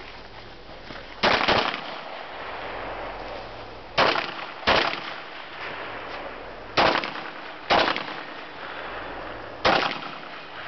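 Six pistol shots fired at an uneven pace, the middle four in two pairs less than a second apart.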